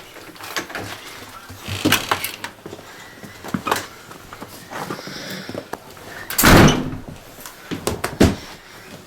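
A cardboard shipping box being handled: scattered knocks and clicks, and one loud scraping rush lasting about half a second, roughly two-thirds of the way through.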